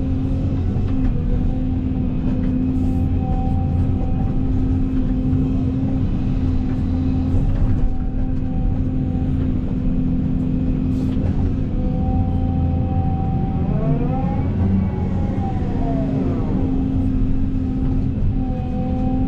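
Excavator diesel engine and hydraulics running steadily under load while digging, with an even hum. About two-thirds of the way through, the pitch briefly dips and comes back up.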